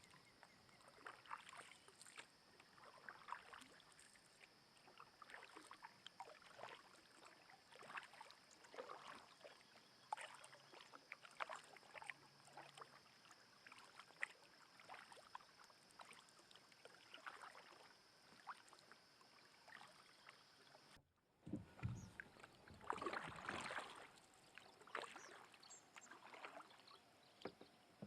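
Kayak paddle dipping and splashing in the water, faint strokes about every second. After a brief dropout about three quarters of the way through, the splashes are louder.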